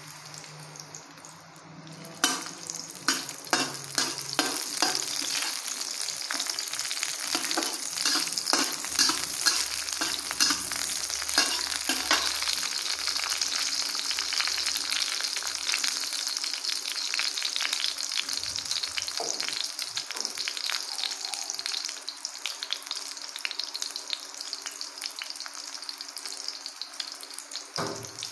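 Chopped garlic dropped into hot oil in an aluminium wok, sizzling from about two seconds in. Through the first half a metal spatula scrapes and taps against the pan as the garlic is stirred, then the sizzling carries on steadily.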